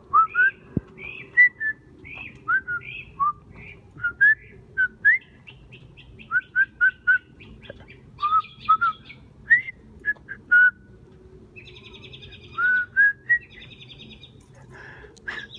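A songbird singing a long, varied song of short whistled notes, many sliding upward, some repeated several times in quick series, with rapid buzzy trills about twelve and fourteen seconds in.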